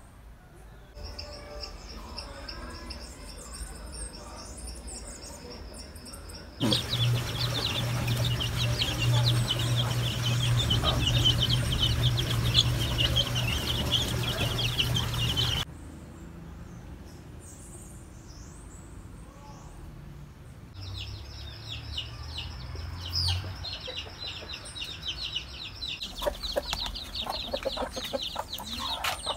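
Chicks peeping rapidly and hens clucking, in several short stretches that cut in and out abruptly. A steady low hum runs under the loudest stretch.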